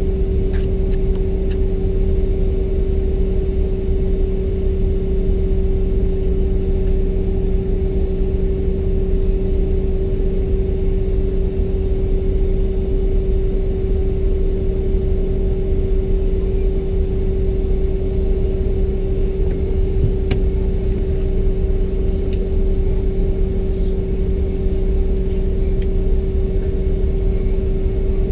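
Steady cabin drone inside a stationary Bombardier CRJ-700 jet: a constant low rumble with an unchanging pitched hum, and a few faint clicks.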